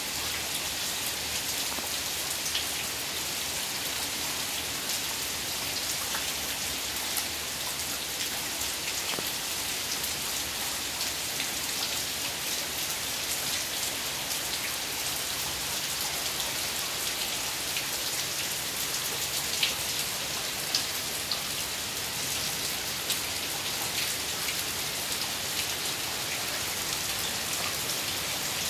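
Heavy rain falling steadily, a dense even hiss of rain on the ground, walls and roofs, with scattered sharper drop hits standing out here and there.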